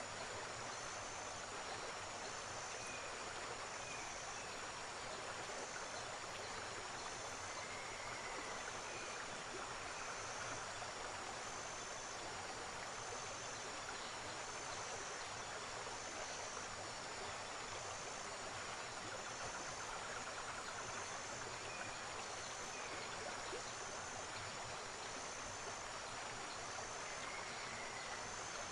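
River water rushing in a steady, even wash. A faint high-pitched chirp repeats about once a second over it.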